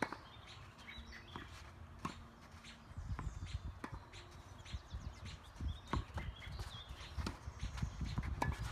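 Tennis ball struck by a racket and bouncing on a hard court: sharp single knocks every second or few, the loudest right at the start, with a low rumble from about three seconds in.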